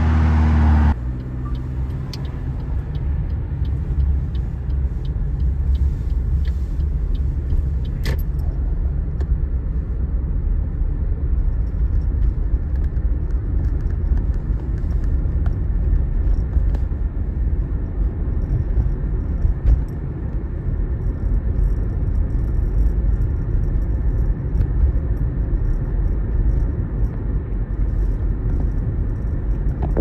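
A car passes close by in the first second, then a steady low rumble of engine and tyre noise inside a moving car. A single sharp click about eight seconds in.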